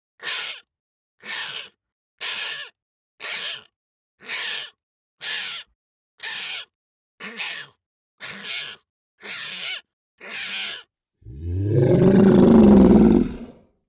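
Monster creature sound effect: a run of short, raspy breaths at about one a second, eleven in all, then about eleven seconds in a loud, low growling roar lasting a couple of seconds.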